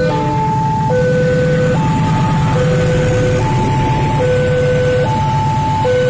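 A railway level crossing's electronic warning alarm sounding two alternating tones, a lower then a higher one, each held a little under a second, over the steady low rumble of a diesel freight train passing with a line of covered cargo wagons.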